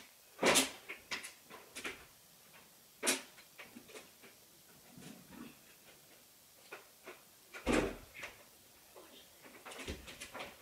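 Handling noises: scattered knocks, clicks and rustles of objects being moved about. The loudest knocks come about half a second in, about three seconds in and near eight seconds in.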